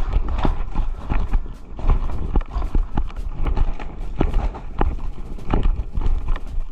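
Footsteps of a player moving over the field, with gear knocking at each step, over a steady low rumble.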